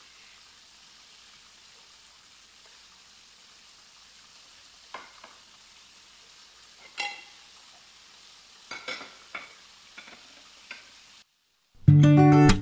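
Fish fillets sizzling faintly in hot oil in a frying pan, with a few light clinks and knocks of kitchenware from about five seconds in. Near the end the sound cuts off and loud acoustic guitar music starts.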